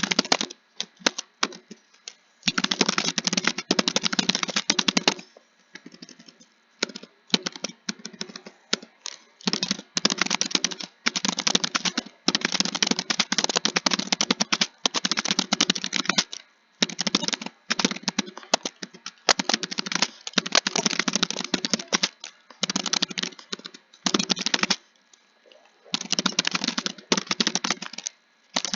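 Computer keyboard typing in fast runs of keystrokes, each run lasting one to a few seconds, broken by short pauses.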